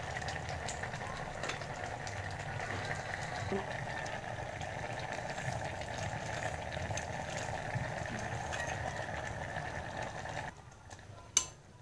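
Orange jam mixture boiling in a glass pot, a steady bubbling hiss that cuts off abruptly near the end. A single sharp clink of the stirring spoon follows just before the end.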